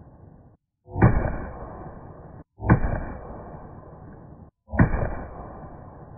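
Three pistol shots from a Tisas 1911 A1 Service, about two seconds apart. Each is a sharp crack trailing off into echo.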